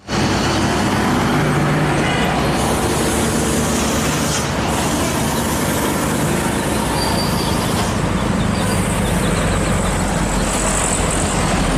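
Heavy road traffic passing close by: a diesel intercity coach and trucks driving past at speed, with engine and tyre noise that holds steady throughout.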